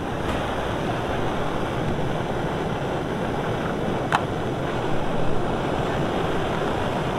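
Backpacking gas-canister stove burning under a pot, a steady hiss from its burner flame. A brief click about four seconds in.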